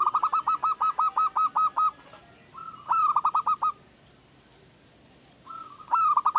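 Male zebra dove (perkutut) singing: three cooing phrases, each opening with a slurred note and running into a quick series of short, clipped coos, the first phrase the longest at about a dozen notes. It is a newly kept wild-caught bird only just beginning to sing regularly.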